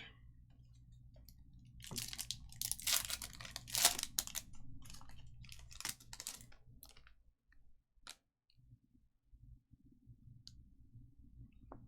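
Trading-card packs and cards being handled: crinkling and scraping in a run of bursts about two to seven seconds in, then a few separate soft clicks.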